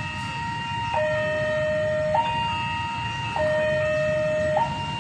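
Railway level-crossing warning alarm sounding a two-tone signal, a high and a low note alternating, each held a little over a second, warning that a train is approaching. A steady low rumble runs underneath.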